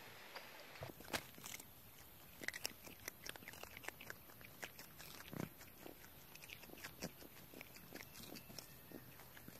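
Brown lemurs feeding on a floor of dry leaves: small irregular crunches and clicks from their eating and from the leaf litter, starting about a second in.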